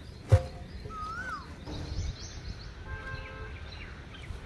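Quiet outdoor ambience with birds calling, one a whistled call that rises and falls a little after a second in. A single sharp knock sounds near the start.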